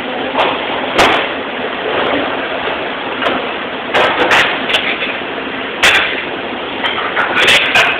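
Dishes and trays clattering as a restaurant dish cart is cleared and unloaded, a series of sharp knocks every second or so over a steady hiss of dish-room noise.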